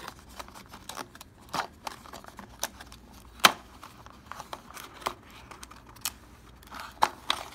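Cardboard packaging handled by hand: a paperboard box insert being gripped and pried out, giving scattered light clicks and taps, the sharpest about halfway through.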